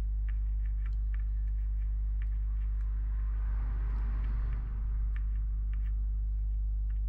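Steady low electrical hum under light ticks from a soldering iron working over flux-coated solder pads on a circuit board. A soft hiss swells and fades about halfway through.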